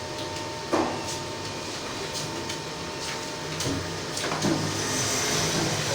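Computer keyboard keys being typed on, irregular sharp clicks about two a second, over a steady room hum.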